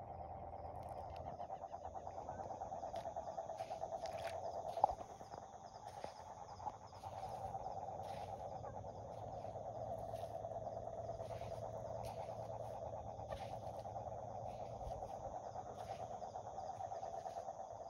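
Male toad calling: one long, steady, rapidly pulsed trill that weakens for a couple of seconds after a sharp click about five seconds in, then resumes. Insects chirp faintly in the background.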